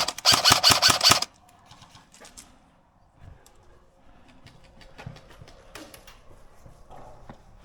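Close airsoft rifle firing a fully automatic burst, a fast even rattle of about ten shots a second, which stops abruptly about a second in. Faint scattered airsoft shots and BB hits follow.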